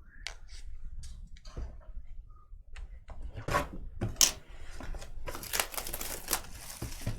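Trading cards and their holders being handled: scattered light clicks and rustling, with a denser stretch of crinkling and sliding about five seconds in.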